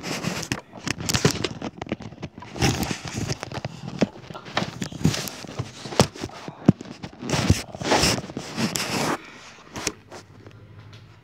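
Handling noise on a phone's microphone: fingers rubbing, scraping and knocking against it in irregular rustles and sharp clicks, dying down near the end.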